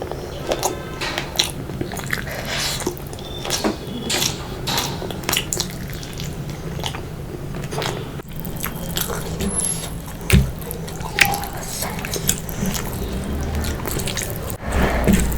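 Close-miked eating sounds: wet chewing, biting and lip-smacking of fish curry and rice, a series of short irregular clicks a few times a second, with one louder knock about two-thirds of the way through.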